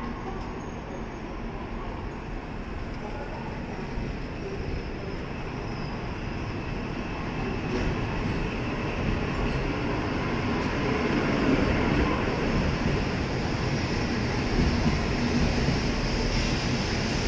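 N700-series Shinkansen train pulling out of the platform and accelerating past, its running noise growing steadily louder, with a faint high whine that rises in pitch as it picks up speed.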